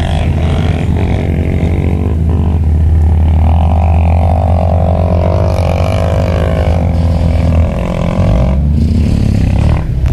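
Off-road 4x4's engine running under load as it drives up through loose sand. It is a steady low drone, with a wavering higher engine note through the middle few seconds.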